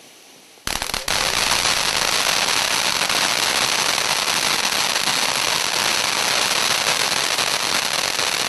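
Flashing Fireworks FF1088 Fantasyland Fountain, a consumer fireworks fountain, breaks into a loud, dense crackle about half a second in and keeps crackling steadily.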